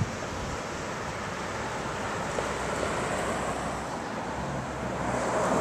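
Steady rush of street traffic and wind, with a vehicle's engine growing louder near the end.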